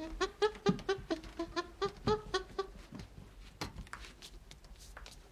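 Chimpanzee calls: a quick run of short pitched hoots, about four a second, lasting some two and a half seconds, followed by a few faint knocks.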